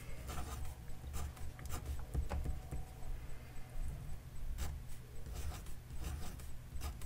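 Pen scratching on paper, a run of short irregular strokes with brief pauses as digits are written out.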